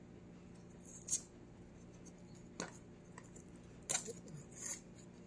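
Sealing tape being peeled off the lid seam of a metal tin, making a few short, sharp crackles and ticks over a faint steady hum.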